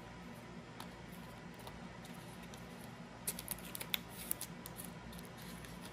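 Trading cards being handled and flipped through, card sliding and clicking on card. One faint click comes about a second in, then a quick flurry of sharp clicks and rustles around three to four seconds in, over a low steady hum.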